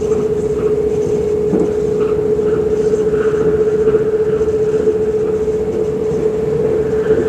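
Inside a moving electric passenger train: a steady running rumble with a constant humming tone, unchanged throughout.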